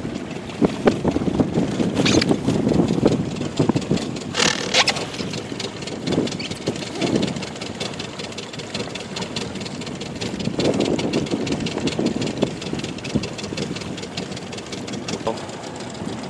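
Small outboard motor on a rubber dinghy running at low speed, a steady rapid chugging that swells briefly a few times.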